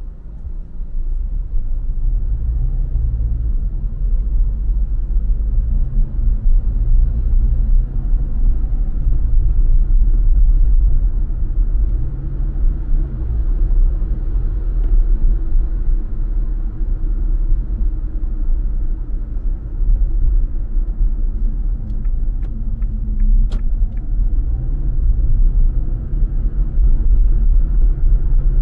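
Car driving: a loud, steady low rumble of road and engine noise, with the engine hum rising and falling in pitch as the car speeds up and slows down. A few sharp clicks come about three-quarters of the way through.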